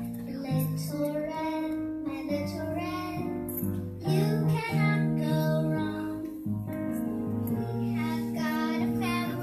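A child singing a song over instrumental backing music with sustained chords.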